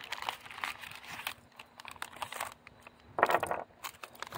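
Cardboard ammunition box packaging being handled: crinkling and rustling with small clicks, louder for a moment about three seconds in.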